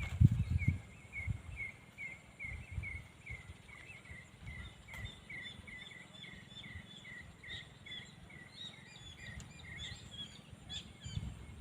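A bird calling the same short chirp over and over, about three a second, with higher chirps from a second bird joining partway through. Wind gusts buffet the microphone with low rumbles, strongest at the start.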